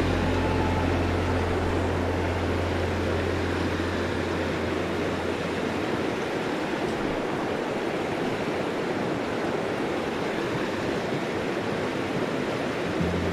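Mountain stream water rushing and splashing over rocks in a steady wash, with a low rumble underneath that fades out about halfway through.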